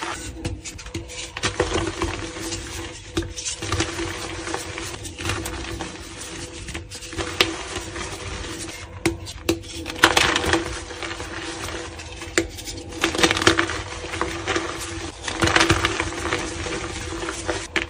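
Soft blocks of reformed gym chalk crushed and crumbled between gloved hands into loose powder: irregular crunching and crackling with powdery rustling. The crunching is heaviest about ten seconds in and again near the end.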